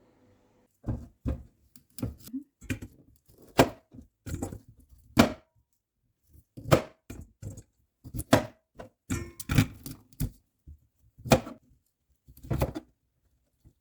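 A knife cutting on a chopping board: about twenty irregular sharp knocks with uneven pauses between them.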